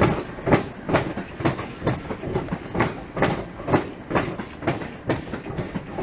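Class 357 Electrostar electric multiple unit moving off through the sidings, its wheels clicking over rail joints and pointwork about twice a second.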